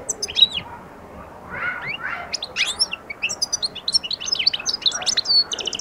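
Algerian goldfinch singing the opening of its song: quick high chirps and twittering trills. A pause of about a second comes near the start, then dense twittering ends in a fast buzzy rattle.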